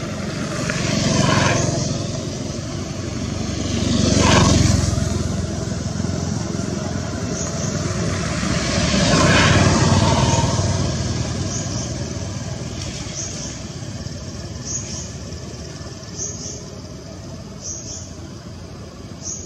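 Motor vehicles passing close by: three rise and fade, about a second, four seconds and nine seconds in, over a steady background hum. Short high chirps repeat through the second half.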